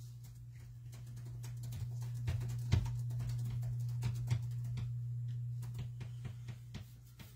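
A steady low hum with many light clicks and taps scattered through it, a few louder knocks about three and four seconds in.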